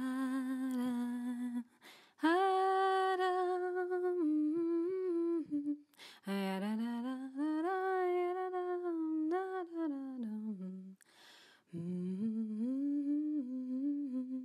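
A woman humming a slow melody without words, in phrases of a few seconds with short breaths between them.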